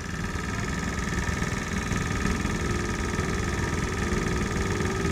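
A Chinese-built quad bike's engine running as it drives closer, getting louder over the first couple of seconds and then steady, with a steady hum coming in about halfway through.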